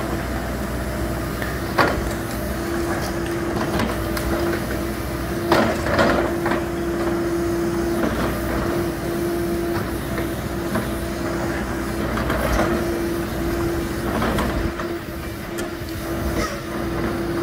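Diesel engine of a Hidromek 102S backhoe loader running steadily, a held tone over its low rumble, with a few sharp clunks about two seconds in and again around six seconds.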